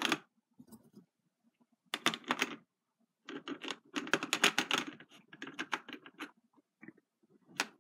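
Toy power coins clicking and clattering as they are pressed one after another into the coin slots of a Power Rangers Master Morpher. A short run of clicks comes first, then a longer, denser run.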